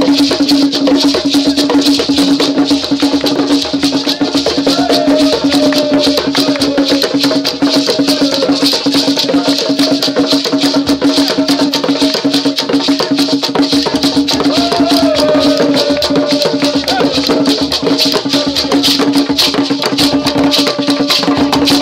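Ghanaian traditional drumming: drums struck with sticks and hands in a fast, dense rhythm, with shakers rattling and a steady ringing tone underneath. Loud and continuous, with wavering voices above it.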